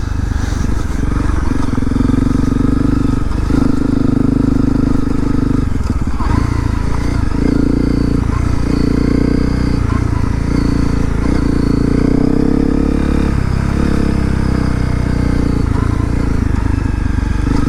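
Honda CRF250L's single-cylinder engine running steadily as the dual-sport motorcycle rides along a dirt trail. Its pitch dips briefly several times as the throttle eases off and picks up again.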